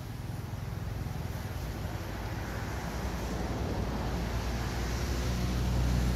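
A motor vehicle approaching: low engine hum and road noise growing steadily louder.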